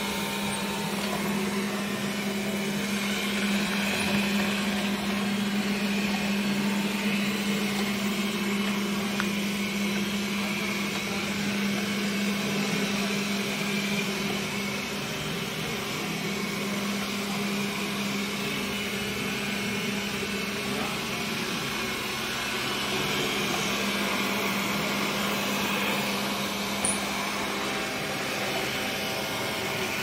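Xiaomi Mi Robot Vacuum running as it cleans a tiled floor: a steady hum with a constant low drone and an even hiss from its suction fan and brushes. A short click comes near the end.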